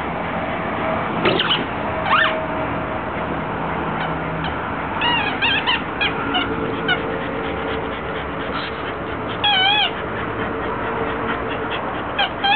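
Squeaky rubber dog toy squealing in short wavering squeaks as a dog bites it, with a longer squeal about ten seconds in and a rising squeal near the end, over steady background noise.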